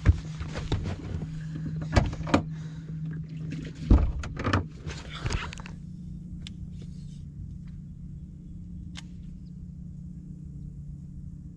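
Bass boat deck noise: a string of knocks and thumps during the first six seconds as a landed bass is handled on board, the loudest about four seconds in, over a steady low electric hum from the boat. After that only the hum goes on, with a few faint ticks.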